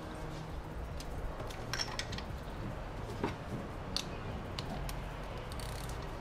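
Scattered light clicks and taps of tools and a spark plug being handled in an engine bay, over a steady low hum.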